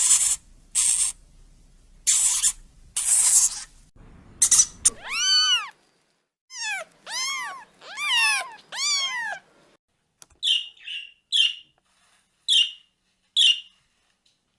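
A domestic cat hissing in four short bursts, then meowing about five times with rising-and-falling calls, followed by five short high chirps near the end.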